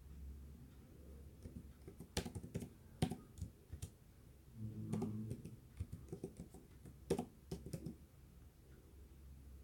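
Typing on a tablet's on-screen keyboard: light, irregular taps and clicks, some in quick runs, others spaced out. About halfway there is a short low hum.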